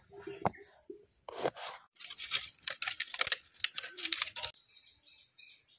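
A large knife cuts crisply through a green bell pepper on a plastic cutting board, a few strokes. About two seconds in, a dense run of sharp crackles follows, from a wood and dry palm-leaf fire burning under a pot. Near the end this gives way to faint bird chirps.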